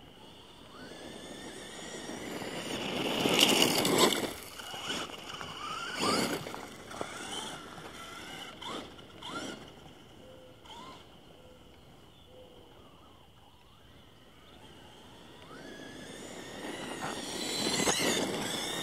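Traxxas Stampede RC truck driving on a gravel road, its motor pitch rising and falling with the throttle over the crunch of its tyres on gravel. It is loudest as it passes close about four seconds in and again near the end.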